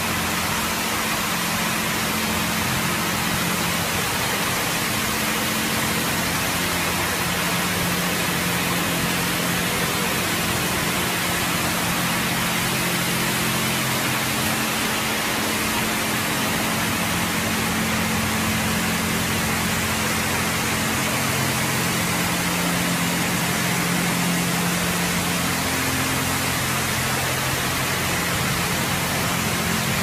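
Automatic car washing machine running: a loud, steady hiss with a low, shifting motor hum underneath.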